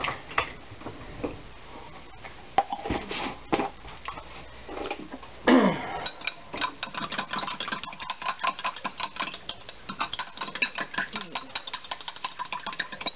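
A utensil stirring briskly in a glass measuring cup, clinking against the glass many times a second as cornstarch is mixed into cold water for a slurry. A few separate clinks and knocks come before the steady stirring starts, about six seconds in.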